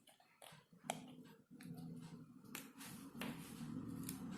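Faint scattered clicks and taps of small parts being handled during the teardown of an aquarium air pump, over a low, faint hum.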